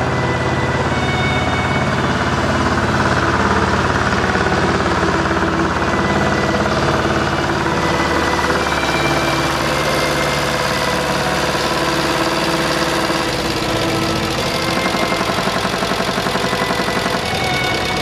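Diesel engine of a New Holland L445 skid steer loader running steadily as the machine drives up on a warm-up test run; the engine note shifts about two-thirds of the way through.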